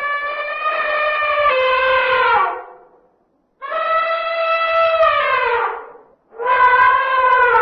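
Male African elephant trumpeting: three long calls of about two seconds each with short gaps between, each holding its pitch and then sliding down at the end.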